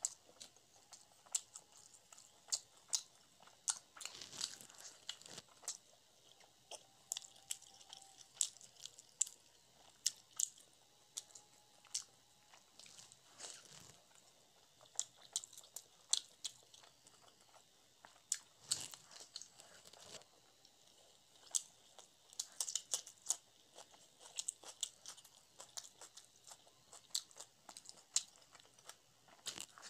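Close-miked chewing and eating of porota dipped in chana masala: irregular sharp mouth clicks and smacks, several a second.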